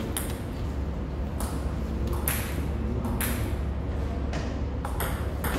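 A table tennis ball tapping sharply six times, roughly once a second, each click echoing in the hall, over a steady low hum.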